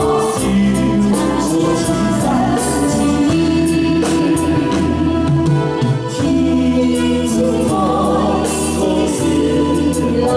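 A woman and a man singing a Cantonese pop duet into microphones, accompanied by a live band with a steady beat.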